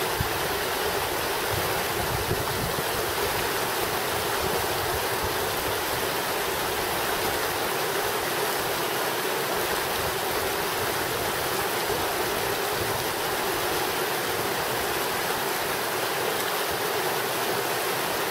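Creek water rushing steadily over rocks in a small riffle.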